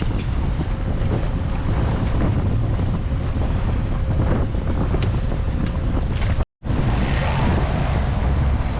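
Wind buffeting the microphone on a boat at sea, a heavy low rumble over the wash of water, with a sudden brief dropout about six and a half seconds in.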